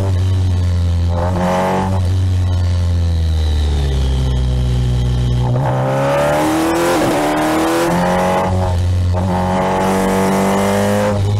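Kawasaki Ninja 1000SX's inline-four engine pulling through the gears on a twisty road, heard from on board. Its note climbs under throttle, then drops several times as the rider shifts or rolls off, over steady wind and road noise.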